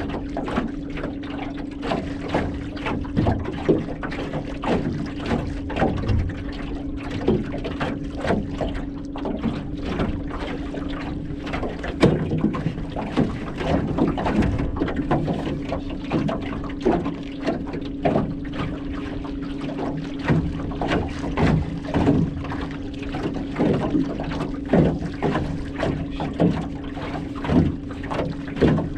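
Small waves lapping and slapping against an aluminum boat hull, over the steady hum of an electric trolling motor running at low speed.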